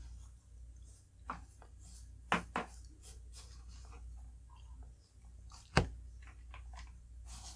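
Metal spoon digging through shaved ice and toppings in a large glass bowl: scattered soft clicks and scrapes, with one sharper click about three-quarters of the way through.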